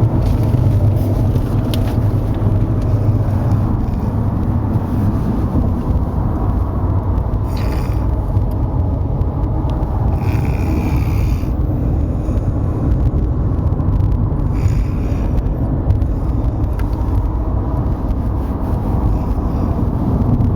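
Steady low road rumble inside a moving car's cabin. Three short hissy sounds come a few seconds apart, about a third and halfway through.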